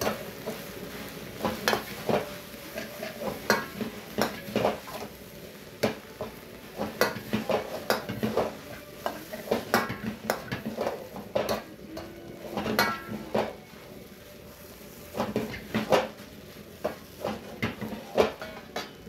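Steel ladle scraping and knocking against a metal wok while stir-frying rice, in irregular strikes about one or two a second, over a steady sizzle from the frying rice.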